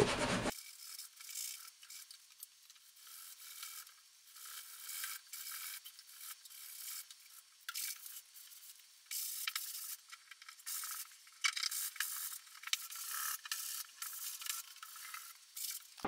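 Sanding sponge rubbed by hand over the painted wood of a dresser: light, scratchy strokes, uneven in pace. This is a light sanding between coats of black paint to leave the surface smooth for the final coat.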